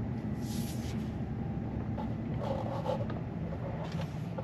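Tesla Cybertruck's electric drive heard from inside the cab while driving slowly: a steady low hum. The driver finds this electric sound louder than in other Teslas and wonders whether it comes from the electric motor.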